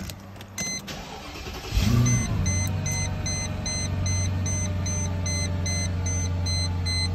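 2000 Mercedes-Benz SL500's 5.0-litre V8 cold-starting: it catches about two seconds in, the revs flare briefly and settle into a steady idle. A dashboard warning chime beeps about three times a second once the engine catches.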